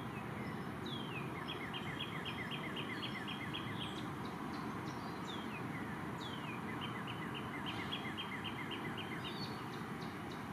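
A bird singing at night over a steady background hiss: two phrases, each a falling note followed by a quick run of repeated notes at about four a second.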